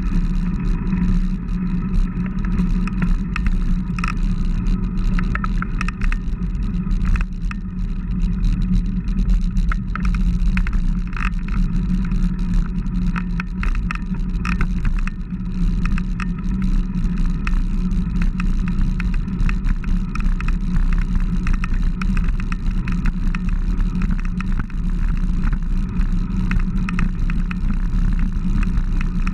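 Wind and road rumble on a handlebar-mounted camera aboard a moving road bicycle: a steady, loud low rush with scattered light rattles.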